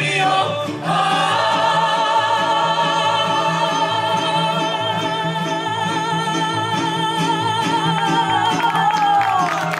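Woman singing a long sustained note with wide vibrato, backed by strummed mariachi guitars. The note slides down in pitch near the end.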